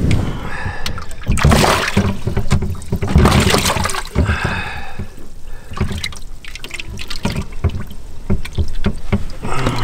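Water sloshing and splashing in a boat's livewell as a hand gropes through it and grabs a largemouth bass, in uneven bursts, busiest in the first few seconds.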